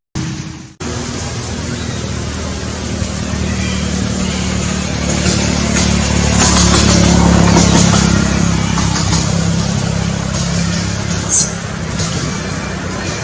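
Steady engine and road noise of a motor vehicle, starting after a brief silent gap, with a short high squeak about eleven seconds in.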